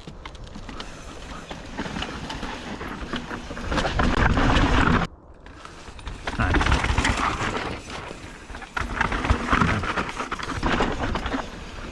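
Mountain bike rolling down a steep trail drop: tyres crunching over dirt and rock, with the bike rattling in many sharp clicks. The noise cuts off briefly about five seconds in, then picks up again.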